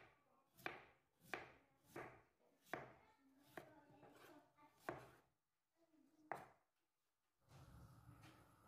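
Knife cutting vegetables on a cutting board: about eight single, sharp cuts, spaced further apart toward the end. A steady low background noise starts near the end.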